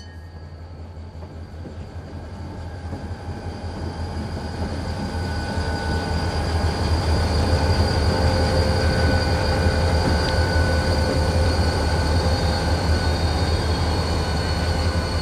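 Wheeling and Lake Erie diesel freight locomotive and train running, a low engine rumble with thin steady whining tones over it. It grows louder over the first several seconds as it draws near, then holds steady.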